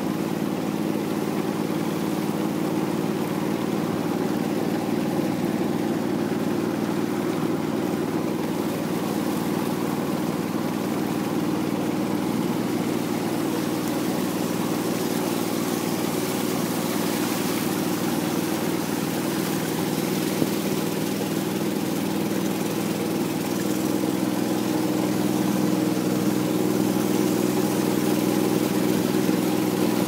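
Small river boat's engine running steadily as the boat moves along, getting a little louder in the last few seconds.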